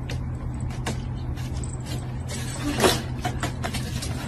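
A cat's paws and a toy tapping and knocking on a wooden floor while the cat pounces and bats at it, over a steady low hum. The loudest knock comes near three seconds in.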